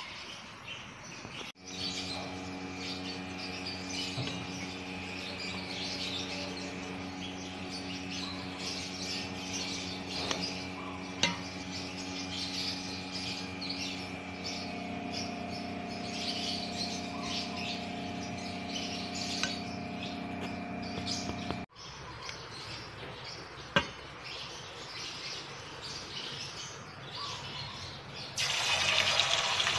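Small birds chirping over a steady hum, with a couple of light knocks. Near the end, battered chicken pieces go into hot oil and start to sizzle loudly.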